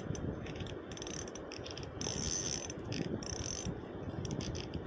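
Spinning reel working under the load of a hooked trout: fast gear and ratchet clicking in short bursts as line is fought in against the current.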